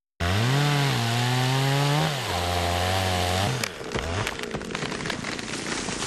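Chainsaw running hard as it cuts through a tree trunk, its pitch sagging twice under load. It stops about three and a half seconds in and gives way to a run of cracks and snaps as the felled tree breaks free and comes down.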